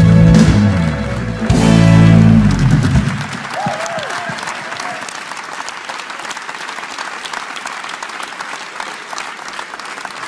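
A large band ends the song on a loud sustained final chord that stops about three seconds in, and applause takes over and carries on steadily.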